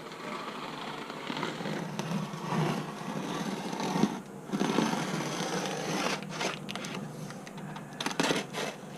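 Razor blade slicing through the tape and cardboard of a TV shipping box: an uneven run of scraping and cutting, with several sharp clicks toward the end.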